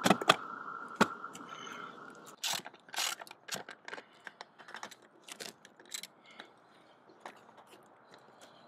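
Ratchet wrench clicking in irregular runs as nuts are run down on the bolts of a metal roof drain's clamping ring, tightening it to seal the roofing to the drain. The clicks are loudest about two to three seconds in and grow sparser and fainter toward the end.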